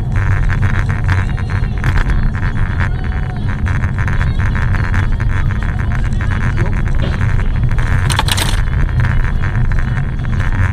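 Steady low rumble of a car driving on a snowy road, heard from inside the cabin, with a constant fine rattle and a short, sharper noise about eight seconds in.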